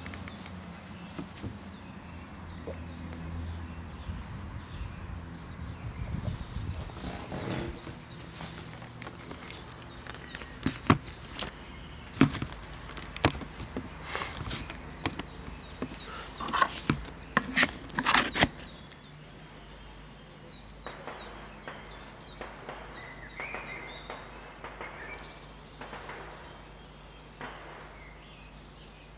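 Distant small-calibre rifle shots from a shooting range: a handful of sharp cracks, the loudest events, between about 11 and 18 seconds in. Under them a steady, rapidly pulsing high insect chirp, with a few short bird chirps near the end.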